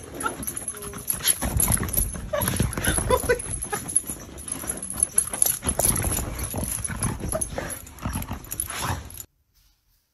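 Dogs scuffling in rough play: a rapid, irregular run of paw thumps and scrabbling with a few short whimpers, cutting off suddenly near the end.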